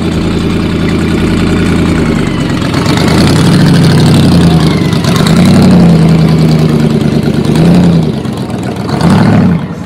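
Loud sports car engine running and revving, its pitch rising and falling several times before dropping off near the end.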